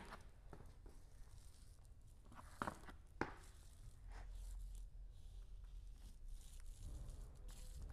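Faint, irregular clicks and soft steps from someone working wet epoxy resin along a floor's edges, the clearest two about two and a half and three seconds in.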